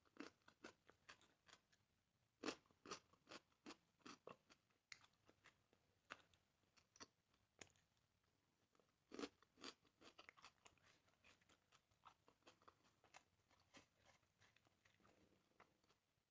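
Faint close-up eating of grilled chicken: irregular crunchy bites and chewing clicks, the loudest bites about two and a half and nine seconds in.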